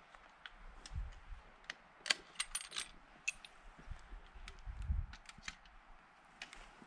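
Light metallic clicks and clinks from a hunting rifle being handled, bunched in a quick cluster about two to three seconds in, with scattered single clicks and a couple of soft low thumps around them.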